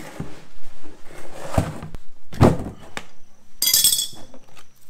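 Hollow knocks from a plastic oil drain pan being shifted on a concrete floor, then a bright metallic clink and jingle of wrenches about three and a half seconds in.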